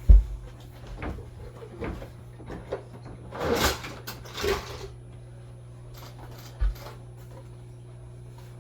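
Handling noise as objects are moved about: a low thump right at the start, scattered knocks, two short rustling scrapes about three and a half and four and a half seconds in, and another thump near seven seconds, over a steady low hum.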